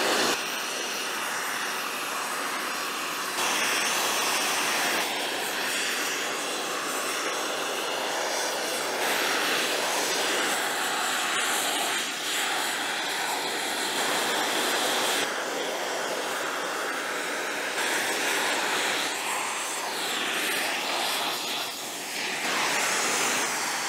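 Oxyacetylene torch flame hissing steadily as it preheats a 3/8-inch metal plate, burning off a layer of acetylene soot before welding. The level swells and eases slightly as the flame moves over the plate.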